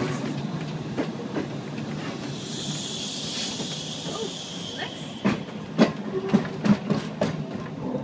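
Glasgow single-deck tram running along the track, with a hiss for a couple of seconds mid-way. In the last few seconds its wheels give a string of irregular clacks as they cross rail joints and pointwork.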